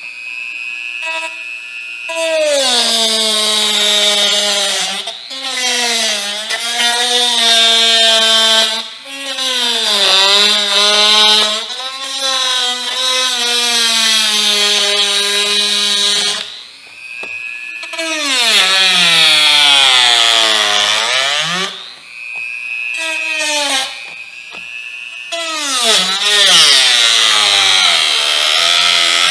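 Handheld rotary tool cutting through a thin clear plastic food-container lid: a high motor whine whose pitch dips and recovers again and again, over a rasping hiss from the cut. It eases off briefly several times, with the deepest, longest dip a little past the middle.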